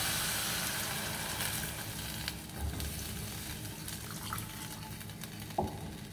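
Water poured from a plastic jug into a hot saucepan of browned ground beef sizzles loudly, and the sizzle dies away as the pan cools. Later come a few light knocks of a plastic spatula stirring in the pan.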